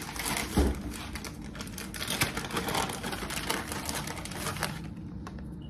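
Plastic bag of shredded cheese crinkling and rustling as it is handled and opened, a dense crackle that eases off near the end, with a soft knock about half a second in.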